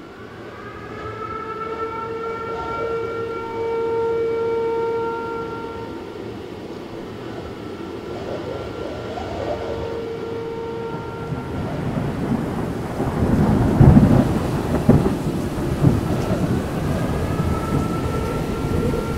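A held droning tone with overtones comes and goes, sliding up a little each time it starts. About two-thirds of the way in, a deep rumble like rolling thunder builds under it, with its loudest crash shortly after it begins.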